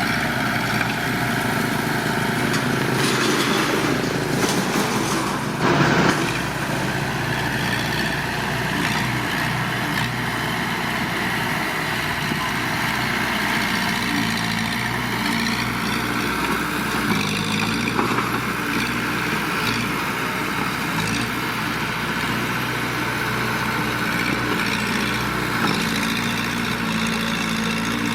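Heavy earthmoving machine's diesel engine running steadily, its note shifting with load and stepping up about seventeen seconds in. A single short, loud knock comes about six seconds in.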